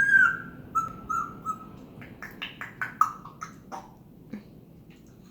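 African grey parrot whistling: a held whistle that dips slightly in pitch, then a few shorter whistles, then a quick run of short chirps and clicks about two seconds in.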